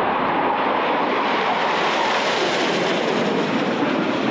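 Jet engine roar of a formation of six MiG-29 fighters flying over, steady in loudness, its pitch sinking slowly as they pass.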